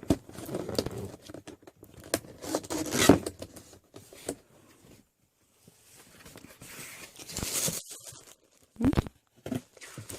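Shoe box packaging being opened by hand: irregular rustling, crinkling and tearing of paper and cardboard, with a brief pause about halfway through and a sharp knock near the end.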